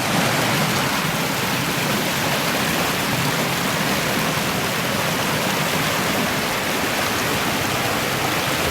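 Mountain stream waterfall rushing: a steady, loud roar of falling water.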